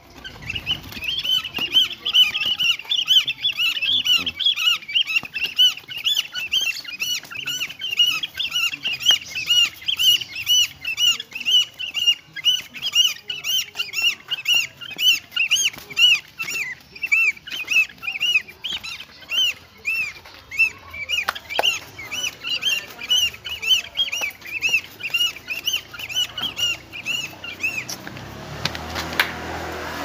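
A cormorant calling in a rapid, steady series of short squeaky notes, about four a second, stopping shortly before the end: the begging call of a tame bird that expects fish.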